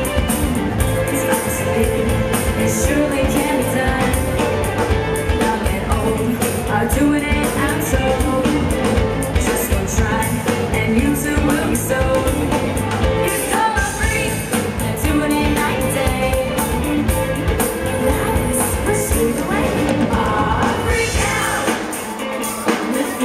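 Live pop-rock band playing with a singer, electric guitar and drums over a steady beat, heard through the stage PA. Near the end the bass and drums drop out.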